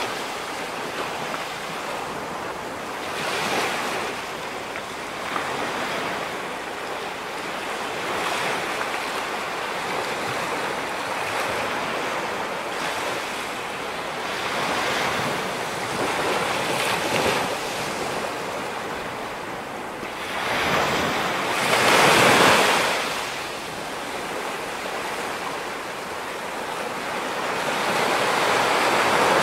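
Ocean surf: waves breaking and washing in a continuous rush that swells and fades every few seconds. The biggest wave surges about three quarters of the way through, and another builds near the end.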